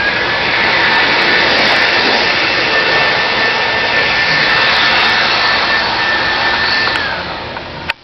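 Chainsaw running at high revs, steady and loud, its pitch climbing as it spins up at the start and dropping away about seven seconds in. A sharp click comes just before the end.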